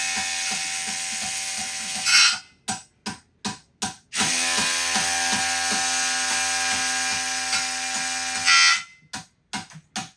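Hilti SIW 6AT-22 cordless impact wrench running under load in two runs of about four seconds each, with a steady whine and a regular rapid ticking as it drives and torques concrete anchors. After each run comes a short series of sharp knocks from a hammer striking the anchors.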